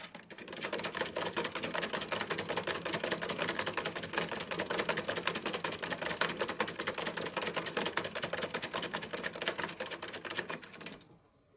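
A Richardson's ground squirrel running fast in a plastic exercise wheel: the spinning wheel makes a rapid, even clatter that stops suddenly near the end.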